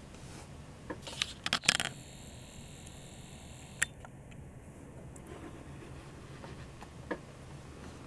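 Handling noise as a camera is moved in close: a cluster of clicks and knocks about a second in, a single sharp click near four seconds and a lighter one near seven, over a faint low hum.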